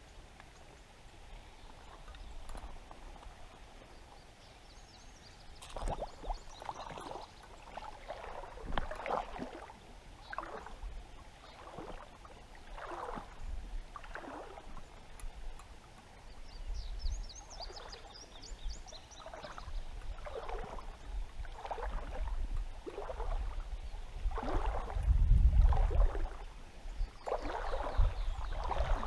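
Water swishing and splashing around a person's legs as they wade, about one stroke a second, growing louder toward the end.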